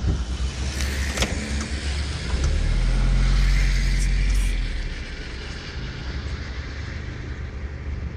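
Motor vehicle engine running, heard from inside the cab, a low steady hum that grows louder for about two seconds midway and then eases. A sharp click about a second in.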